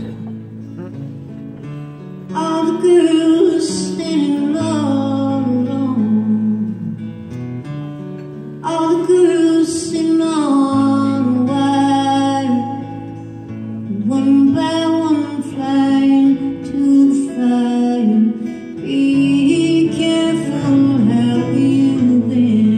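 Live performance of a slow song: a woman singing over two guitars, one of them acoustic, heard from the audience. Her sung lines come in phrases a few seconds long with the guitars ringing between them.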